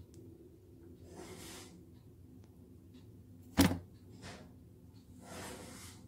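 One sharp knock about three and a half seconds in, the loudest sound, between two soft rushes of noise, over a low steady hum.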